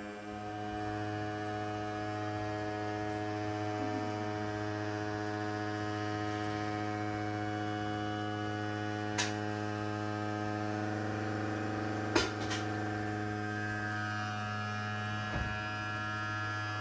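Electric cream separator (Slavic Beauty brand) running steadily at full speed while it separates milk into cream and skim milk: an even electric motor hum. A few short clicks sound over it, the sharpest about twelve seconds in.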